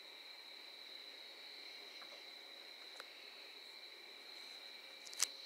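Crickets chirping in a faint, steady, high-pitched trill. There is a small click about three seconds in and a sharper click near the end.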